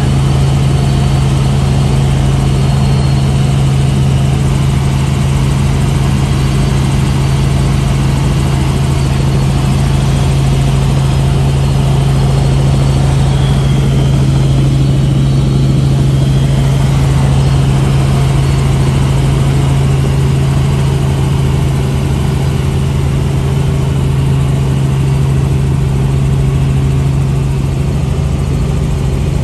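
Helicopter engine and rotor noise heard inside the cabin in flight: a loud, steady drone with a strong low hum.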